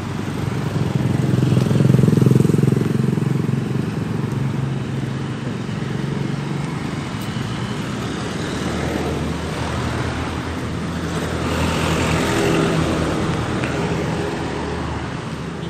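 Street traffic: a motor vehicle's engine swells as it passes close by about two seconds in, then another engine draws near and passes, loudest about twelve seconds in, over a steady traffic hum.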